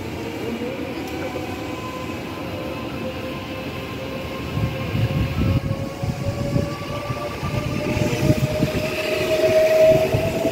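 Kintetsu 23000-series Ise-Shima Liner electric train pulling away from the platform. The traction motor whine rises steadily in pitch as it accelerates, and wheel and car rumble grows louder from about halfway through.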